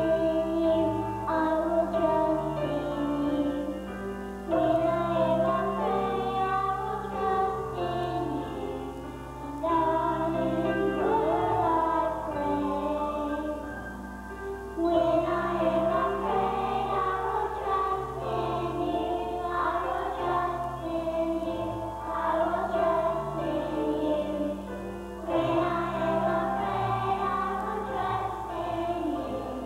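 Children's choir singing a song over a musical accompaniment with a low bass line.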